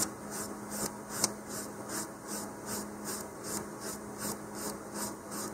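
Emery board rubbed back and forth over a small fin trim piece, about three short scratchy strokes a second, tapering its forward edge.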